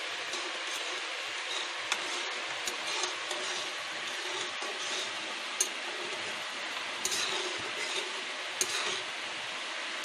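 Semolina being stirred into boiling water in a metal kadhai: a steady hiss from the boiling pan, with a few sharp clicks of the spoon against the pan.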